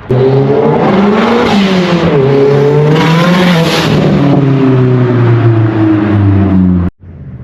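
Turbocharged 2.3-litre four-cylinder engine of a 2007 Mazdaspeed3 revving under load. Its pitch climbs and dips twice in the first few seconds, then falls away steadily before the sound cuts off abruptly near the end.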